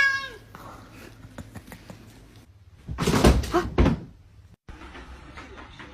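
A cat's meow falling off at the very start, then quiet faint clicks. About three seconds in comes a loud, brief burst of knocks with a voice-like cry, and after a sudden cut a steady low hiss with faint ticks.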